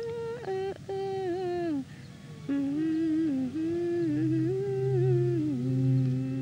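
A high voice humming a slow, wordless melody in gliding phrases with short breaks, with a steady low drone coming in about four seconds in.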